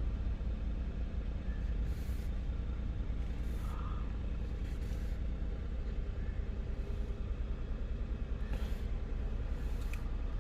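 Hyundai Genesis engine running at a steady idle, a continuous low rumble.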